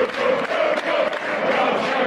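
Football crowd singing a chant together, a mass of voices holding a sustained, steady melody.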